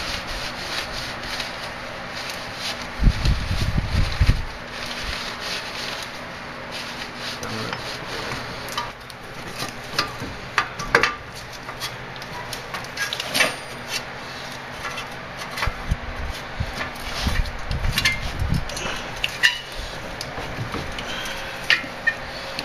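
Hands handling metal parts at a Jeep's front steering knuckle, fitting the hub and axle assembly into it: scattered metal clicks and knocks with rubbing. A few dull low thumps come a few seconds in and again later.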